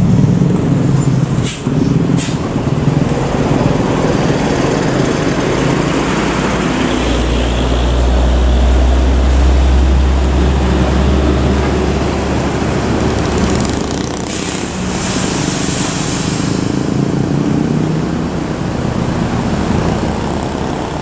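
Mercedes-Benz OH 1626 coach, its diesel engine running as it pulls past close by and drives away amid road traffic. A deep engine rumble swells for several seconds in the middle, and a hiss of air is heard about fourteen seconds in.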